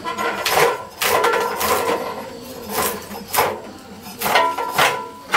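Hilsa fish being drawn against the fixed blade of a boti, a floor-mounted Bengali cutting blade: a series of sharp strokes, about seven in five seconds, some coming in quick pairs.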